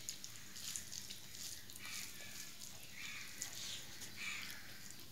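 Close-up eating sounds of a person eating rice and curry by hand: short wet chewing and lip-smacking noises, about one a second.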